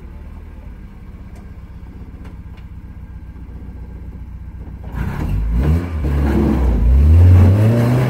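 Pickup truck engine running low and steady as it crawls up a rock ledge, then revving hard about five seconds in, its pitch rising and falling as the truck climbs.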